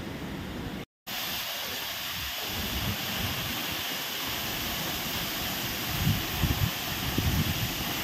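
Waterfall rushing steadily, a constant hiss of falling water plunging into a pool. The sound cuts out for a moment about a second in, and a few low thumps come near the end.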